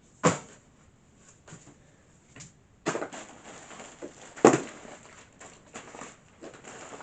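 A few sharp knocks and clatters, the loudest about a quarter second in and about four and a half seconds in, with smaller clicks between.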